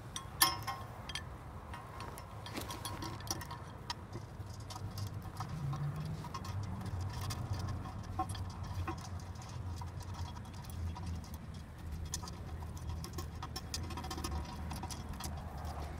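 Small metallic clicks and ticks of steel bolts and washers being handled and threaded by hand into a steel bracket on a rock slider rail, with one sharper click about half a second in.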